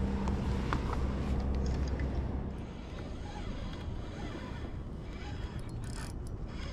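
A boat engine's steady low hum for the first two and a half seconds, stopping suddenly. Then a softer, even outdoor noise with a few faint ticks.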